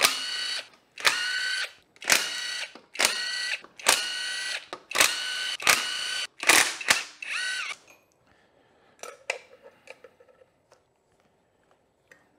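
Cordless drill/driver backing out bolts on a Honda CRF450R engine in about eight short whirring runs, its whine dropping in pitch as some runs stop. Small metallic clicks of the loosened parts being handled follow near the end.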